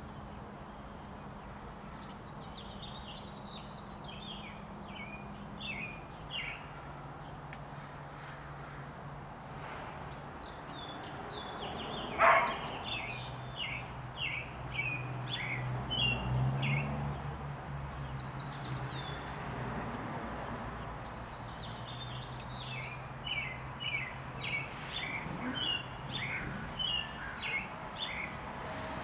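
American robins singing, with short whistled phrases repeating in several bouts. A dog barks once, loudly, about twelve seconds in, over a faint low hum.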